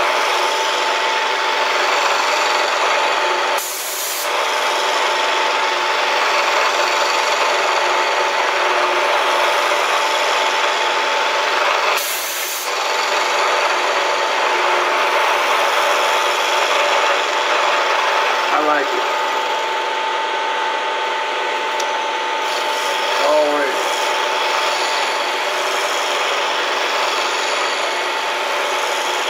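Milling machine cutting metal: a steady rasping noise over a constant whine, with two short dips and a couple of brief falling squeals.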